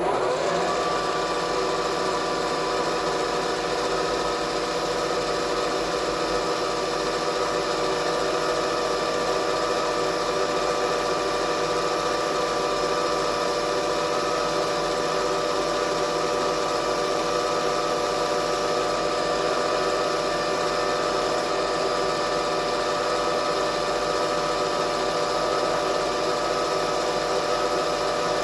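A knee mill's spindle spinning up and then running at a steady speed, turning an edge finder to pick up the part's edge; an even machine hum with several steady tones.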